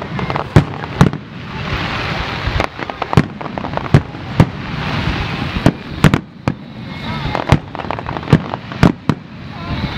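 Aerial firework shells bursting in quick, irregular succession, about one or two loud bangs a second, with a crackling hiss between them.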